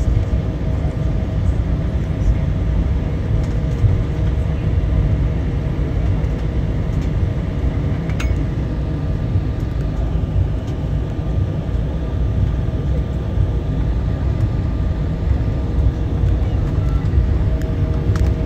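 Steady low rumble inside an airliner cabin during taxi, with a steady engine hum over it. A single sharp tick about eight seconds in.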